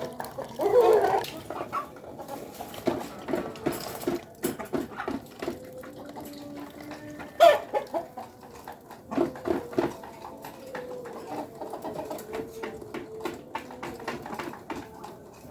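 Ayam kampung (Indonesian village chickens) clucking, with louder squawks about a second in and again midway, among frequent short clicks and taps.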